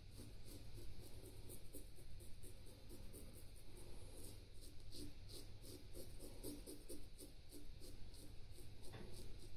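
Feather Popular safety razor, a plastic and sheet-metal Japanese razor fitted with an Astra blade, scraping through stubble in rapid, short scratchy strokes, several a second. There is a single light knock near the end, over a low steady hum.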